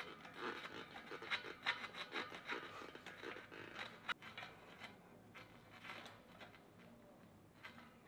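Rapid, faint scraping and rubbing ticks of a blue-handled hand tool worked against a mountain bike's rear-wheel cassette as the cassette is fitted to the hub, thinning out after about five seconds.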